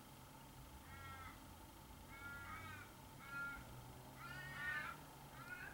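A bird calling in the background: about seven short, faint calls with a clear pitch, roughly one or two a second.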